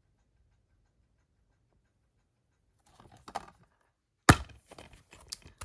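A plastic Blu-ray case being handled: about three seconds of quiet, then soft plastic rustles and one sharp, loud snap a little over four seconds in, followed by smaller clicks as the case opens and the disc is handled.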